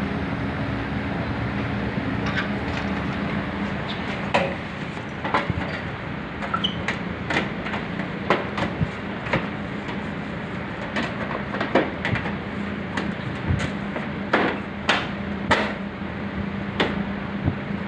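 Split-type aircon outdoor unit running with a steady low hum, its repaired fan motor now working. Repeated sharp knocks and clatters of hard objects come over it, more often in the second half.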